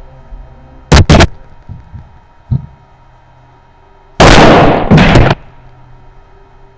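Pool balls close to the microphone: a sharp double clack about a second in and a lighter knock, then a loud rough rumble of about a second as balls roll and knock near the mic.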